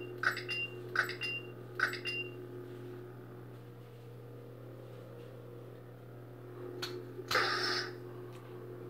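Ultimate Works Bors Dragonslayer lightsaber's sound board humming steadily. Over the first two seconds there are four short click-and-beep signals, the beep it uses for changing blade colour, as the blade cycles from red to blue. Near the end a single click is followed by a short, loud burst of noisy saber effect sound.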